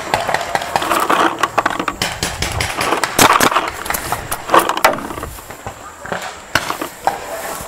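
Paintball markers firing in irregular sharp pops, over distant shouting voices.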